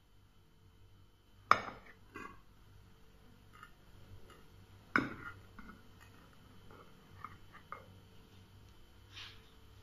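A metal knife cutting through a sponge cake and knocking against the plate beneath: two sharp clinks, about a second and a half in and again about five seconds in, with softer taps and scrapes in between.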